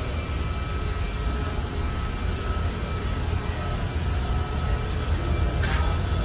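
Boiler-room equipment running: a steady low rumble with a faint steady whine over it, and a brief hiss about five and a half seconds in.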